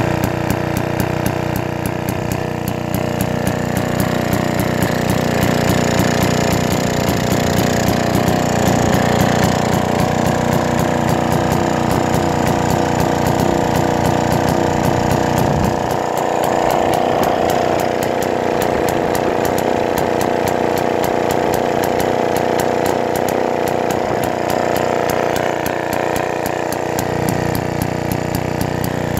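Villiers Mar-Vil stationary engine, a small air-cooled single-cylinder two-stroke, running steadily with a fast, even firing beat. Its low end drops away a little past halfway and comes back near the end.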